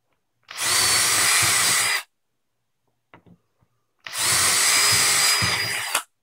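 Power drill with a quarter-inch shelf-pin bit boring two holes into plywood through a drilling template, each run lasting about one and a half seconds with a steady high motor whine. A faint click comes between the two runs.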